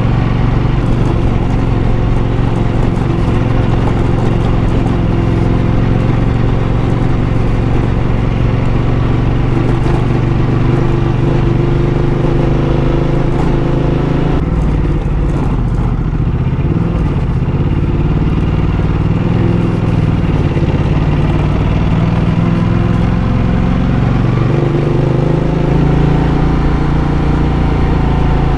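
Ducati Multistrada motorcycle engine running at low revs as the bike climbs a dirt track. Engine speed dips and then picks up again about halfway through.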